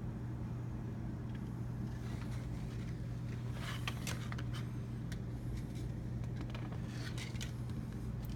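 A steady low machine hum, with a few brief scrapes and clicks about halfway through and again near the end.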